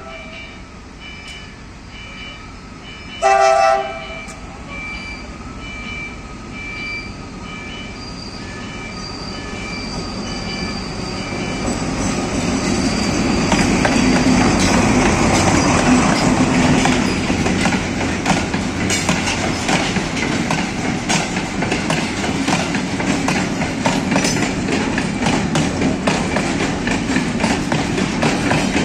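A level-crossing warning bell rings with a regular beat about twice a second. A DE 24000-class diesel-electric locomotive gives one short horn blast about three seconds in, then approaches and passes, its engine loudest around the middle. Ballast hopper wagons follow with a steady rumble and rapid clicking of wheels over the rail joints.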